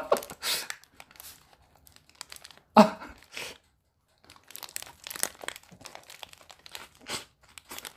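Paper burger wrapper crinkling and rustling in the hands as a tall homemade burger is raised and bitten into, with crunches of lettuce. A louder burst comes about three seconds in.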